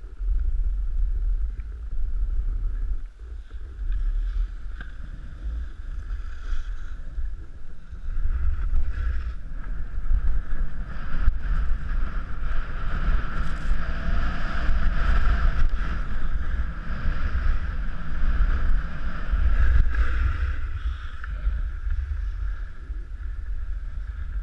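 Wind buffeting the microphone while skiing downhill, with the steady hiss of skis sliding on packed snow, louder through the middle of the run.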